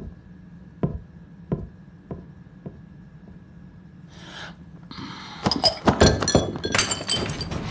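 Footsteps on a ship's steel deck: five evenly spaced knocks, fading, over a faint steady high whine. From about five seconds in, a rapid run of clicking and clattering.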